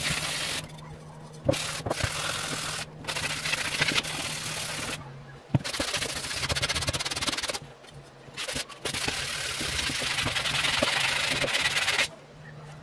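Abrasive sanding block rubbed back and forth over the painted metal dome of a GEC 64d telephone bell, taking the paint down to bare metal. The scrubbing comes in runs of strokes with short pauses, two sharp knocks fall among them, and the sanding stops shortly before the end.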